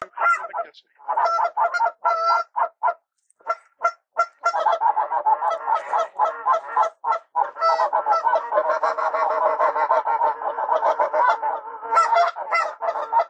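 Geese honking: repeated loud honks, scattered at first, then a near-continuous overlapping chorus of calls from about four seconds in.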